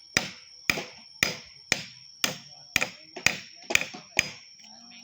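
Mallet striking a carving chisel into wood in a steady rhythm, about two sharp taps a second, stopping shortly before the end.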